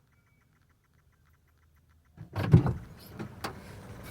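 Near silence with a faint fast ticking, then about two seconds in a sudden, louder run of knocks, clicks and rustling over a low rumble.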